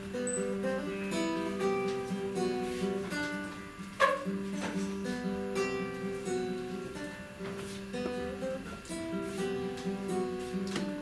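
Nylon-string classical guitar played solo: a run of plucked single notes over a held low note, with a sharp accented chord about four seconds in.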